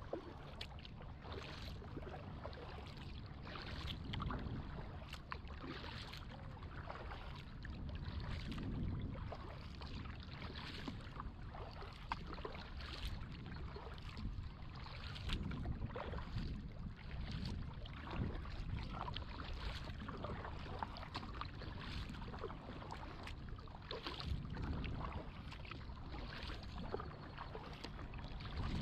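Kayak paddle strokes in the water, with splashes and drips from the blade, over a steady low rumble.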